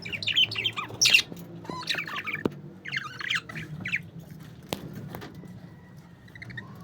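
Parakeets chattering and squawking in quick, overlapping bursts for the first four seconds, then quieter, with a few sharp clicks.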